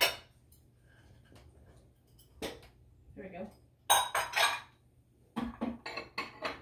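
Kitchen utensils clinking, knocking and scraping against metal mixing bowls and pans as batter and dough are scooped out. The sharp knocks come singly at first, then in quick clusters about four seconds in and again near the end.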